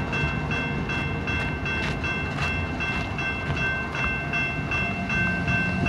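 Railroad crossing warning bell ringing in a steady beat of about two and a half strokes a second, still sounding while the crossing gate arms go up. A low rumble runs underneath.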